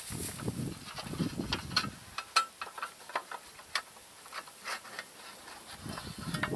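Light clicks and knocks of steel plates being handled in a wooden stand, metal tapping and scraping on metal and wood at irregular intervals.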